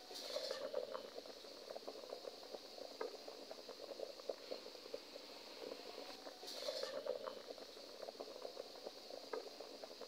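Water boiling in a pot: a steady bubbling with many small pops, swelling briefly about half a second in and again around six and a half seconds in.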